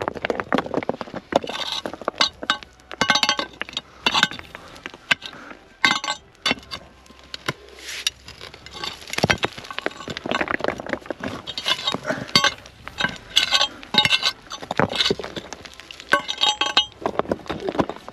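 A metal bar prying and striking among stones and packed earth: irregular clinks and knocks of metal on stone, some briefly ringing, with soil scraping and crumbling.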